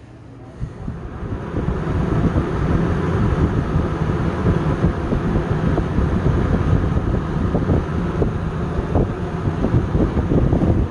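Galaxy E29639 20-inch two-speed box fan switched on about half a second in, spinning up over a couple of seconds, then running steadily. Its rush of air buffets the microphone.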